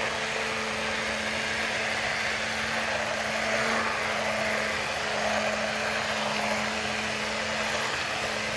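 Electric hand blender running steadily in a pot of thick haleem. Its motor hum holds one even pitch under the noise of the stew being churned. It is mashing the lentils, wheat and meat together: the 'ghota' step that gives haleem its stringy texture.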